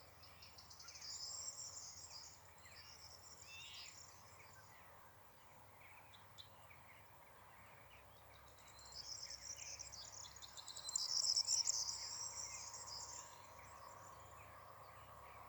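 Insects trilling in high, fast-pulsing spells, one in the first few seconds and a louder one from about the middle, with faint short bird chirps in between.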